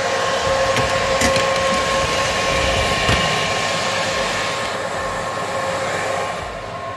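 Convection oven fan running with a steady whir and hum while metal baking trays are slid onto the racks, with a couple of light knocks. The whir drops away near the end as the oven is closed.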